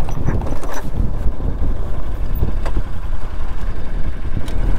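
Motorcycle engine running at low speed over rough off-road ground, a dense low rumble with a few short knocks.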